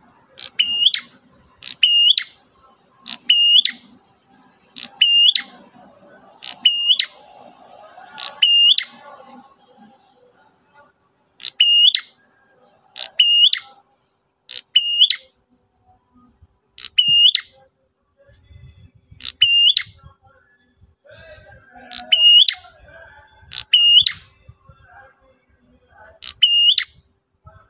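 Prenjak merah (a prinia) calling over and over: each call a pair of sharp, high whistled notes that drop quickly in pitch, repeated about every second and a half with a couple of short breaks.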